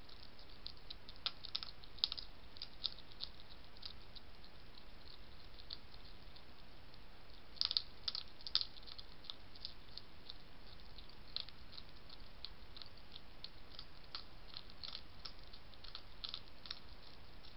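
European hedgehog crunching dry food from a plate: irregular crisp clicks and crunches in small clusters, loudest about two seconds in, around the middle and near the end, over a faint steady hiss.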